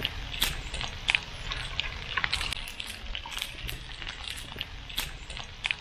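Wood fire crackling in a hobo stove with irregular sharp pops, under the sizzle of sausages and peppers frying in a pan set over it.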